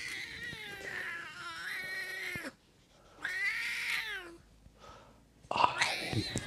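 Domestic cat yowling to be put down while held: two long drawn-out meows with wavering, falling pitch, the first about two and a half seconds long and the second shorter, then a noisy scuffle near the end.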